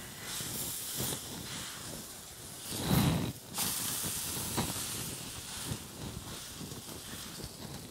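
Greased paratha sizzling on a hot nonstick frying pan while it is pressed and wiped down with a cloth: a steady soft hiss. A brief louder noise comes about three seconds in.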